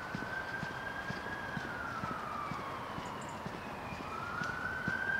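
Emergency vehicle siren wailing, its pitch sliding down about two seconds in and rising again near the end, over steady walking footsteps.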